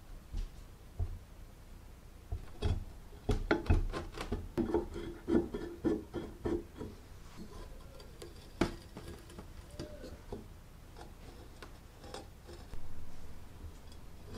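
Rusty cast-iron charcoal iron being worked open by hand: a run of metal knocks and clicks with a grating scrape of rusted parts a few seconds in, then one sharp click near the middle and softer handling noises.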